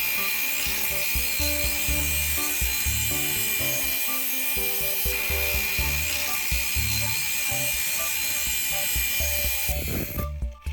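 Background music with a stepping bass line, over a steady rasping hiss from a tool working metal or wood. The hiss drops away briefly near the end.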